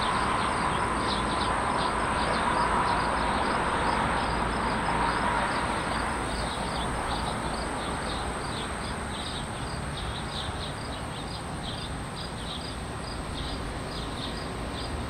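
Crickets chirping steadily over a continuous outdoor rush of wind and distant thunder rumbling, the rumble louder in the first half and easing after about six seconds, as a thunderstorm approaches.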